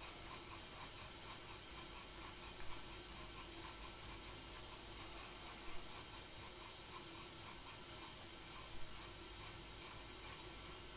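Tea kettle on the brazier simmering with a steady soft hiss, while a bamboo tea whisk works slowly in a ceramic tea bowl, giving a soft brushing sound about every three seconds.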